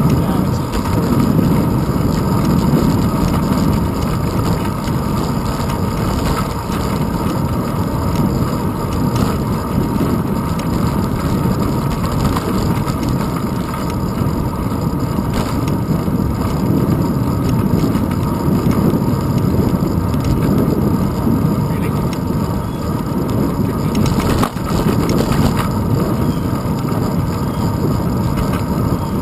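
Steady wind rush and road rumble picked up by a handlebar-mounted GoPro Hero 2 on a bicycle rolling along a paved road.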